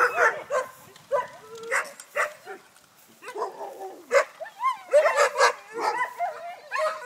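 Several penned sled dogs barking and yowling, short calls overlapping with some that slide up and down in pitch, busiest past the middle.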